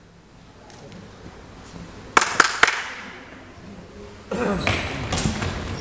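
Three sharp smacks in quick succession about two seconds in, during a youth basketball game in a gym. Voices of players and spectators start up near the end.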